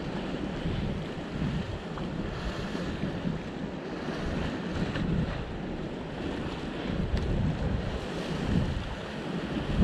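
Wind buffeting the microphone in uneven gusts, over sea waves washing against the rocks below.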